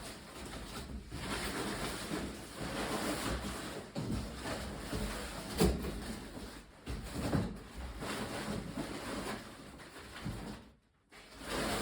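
Rustling and handling noises while an unboxed bike and its packaging are moved about, with a sharp knock about five and a half seconds in and a brief cut to silence near the end.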